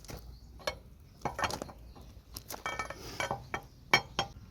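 Metal clinks and knocks of a lug wrench working the wheel's lug nuts loose, a series of sharp strikes with a brief metallic ring in the middle and the loudest strike near the end.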